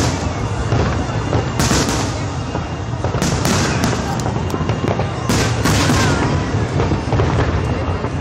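Aerial firework shells bursting overhead: a run of booms and crackles, with three in quick succession around three to four seconds in and two more just after five seconds, over a steady low rumble.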